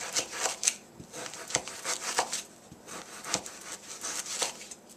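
Kitchen knife cutting partly frozen chicken breast on a paper plate: an irregular run of short scraping strokes and light clicks as the blade works through the still-firm meat.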